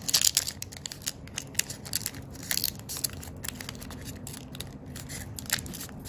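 Origami paper crinkling and crackling as hands fold and crease it: irregular small rustles and clicks, busier in the first half.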